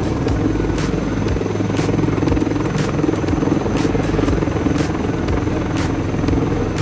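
Helicopter flying over, its rotor and engine running steadily, with music and a beat about once a second coming through at the same time.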